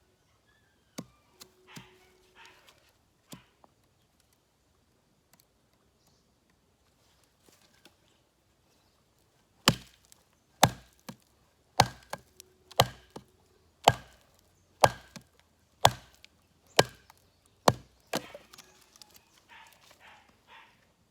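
Cold Steel Rajah II large folding knife chopping into wood to split firewood. It lands about nine sharp blows, about one a second, after a few faint knocks.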